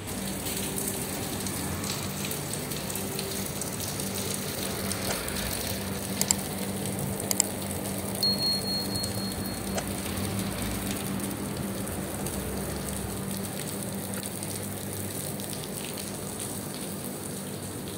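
Heavy rain falling: a steady hiss of rain on surfaces, with a few sharp clicks about six and seven seconds in, a short high tone just after eight seconds, and a low steady hum underneath.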